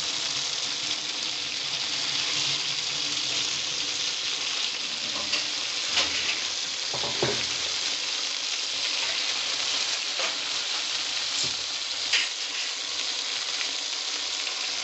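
Food sizzling steadily in a hot pan or plate, with a few light clicks and knocks scattered through, the sharpest near the end.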